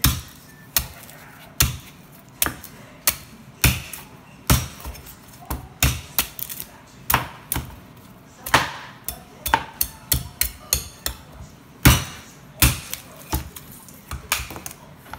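A large kitchen knife chopping the husk off a fresh young coconut on a plastic cutting board: a run of sharp, irregular chops, roughly two a second, as the blade cuts into the fibrous husk and strikes the board.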